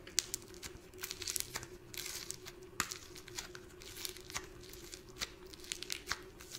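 Sticky yellow clay slime being pulled and kneaded by hand, giving irregular small crackles and tearing sounds as it sticks and peels apart.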